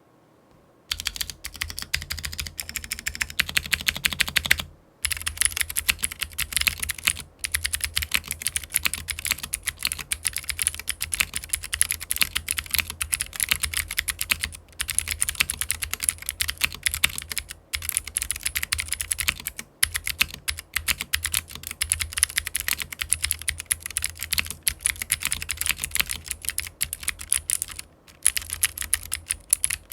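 Fast typing on a Geonworks Frog mechanical keyboard fitted with fully lubed blue clicky switches. It is a dense run of key clicks starting about a second in, broken by short pauses every few seconds.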